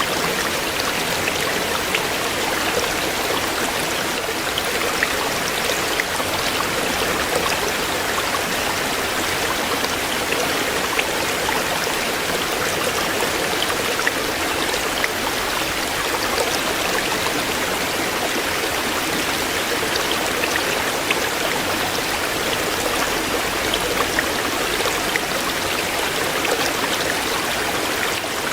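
A shallow stream flowing steadily over stones, a continuous rushing babble with many small splashes and trickles.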